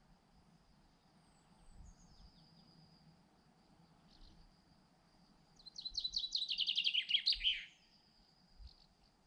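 A songbird sings one fast phrase of about two seconds, a quick run of notes sliding downward in pitch, a little past the middle. Beneath it a steady high insect trill runs on, with a few faint, thin bird chirps earlier.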